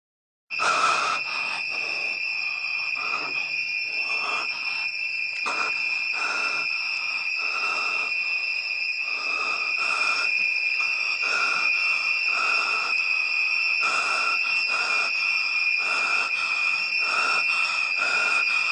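Film-trailer soundtrack: a steady high-pitched whine with a rhythmic pulsing hiss under it, about two pulses a second, starting suddenly about half a second in.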